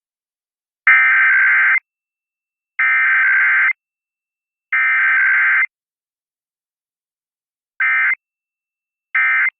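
Emergency Alert System SAME data tones from a broadcast EAS encoder, sounding as harsh buzzing warbles. First come three header bursts of about a second each, about a second apart. After a two-second gap, two short end-of-message bursts follow near the end, closing the test alert.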